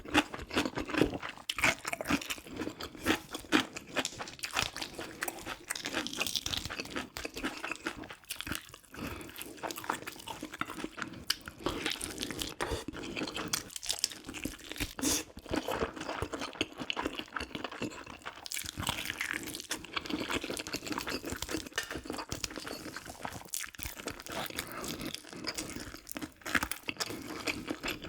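A person eating soy-braised pig's feet (jokbal) and kimchi close to the microphone: continuous chewing and biting, with dense, irregular mouth clicks and smacks.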